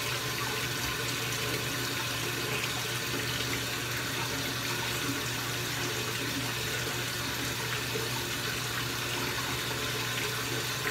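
Bathroom sink tap left running, a steady, even rush of water.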